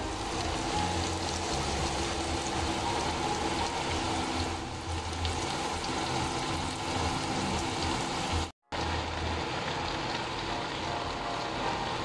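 Pork pieces sizzling in hot oil in a non-stick wok, a steady frying hiss that breaks off briefly about two-thirds of the way through.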